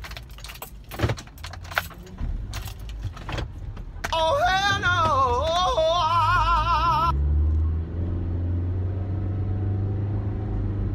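Inside a car: scattered clicks and knocks for the first few seconds, then a loud, wavering tone for about three seconds that cuts off suddenly, followed by the car's steady low engine hum.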